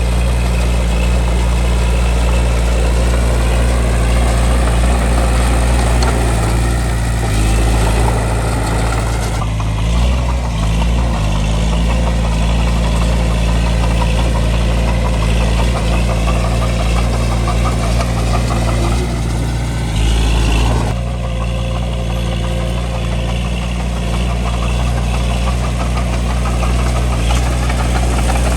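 Bulldozer's diesel engine running steadily while the machine works dirt. The engine note shifts about a third of the way in and again about two-thirds of the way in.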